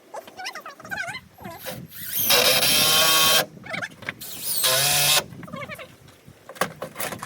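Handheld power tool running in two short bursts: one of about a second, then a shorter one about a second later.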